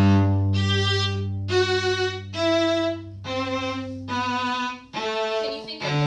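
Violin playing a slow line of held notes, a new note roughly every second, over a steady low held note that stops about five seconds in.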